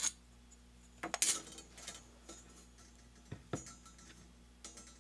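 Light scattered clinks and knocks as a sawn slice of mild steel bar is handled against a steel rule and set on a wooden bench, a few short taps spread over the seconds.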